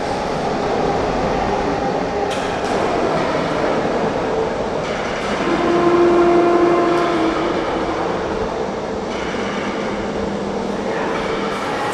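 Heavy factory machinery running with a steady rumble and clatter, with a humming tone rising out of it for a couple of seconds around the middle.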